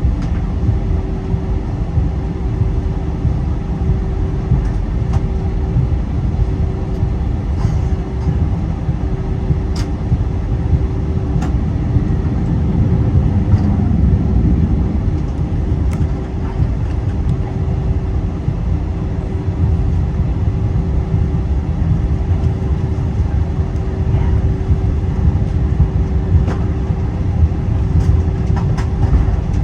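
Jet airliner cabin noise: a steady deep rumble from the engines and airflow, with a constant hum on top and a few faint clicks and rattles from the cabin.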